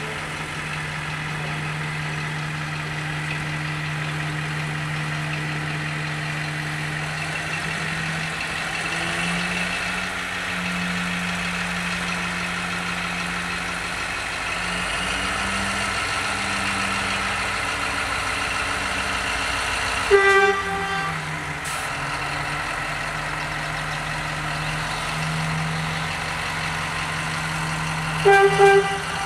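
LDH diesel-hydraulic shunting locomotive's diesel engine running steadily as it moves slowly, its pitch shifting a little now and then. Two short horn toots, about 20 seconds in and near the end, are the loudest sounds.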